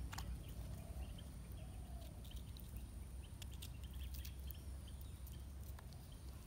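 Knife peeling the papery skin off a red onion: faint, scattered light clicks and scrapes over a steady low rumble.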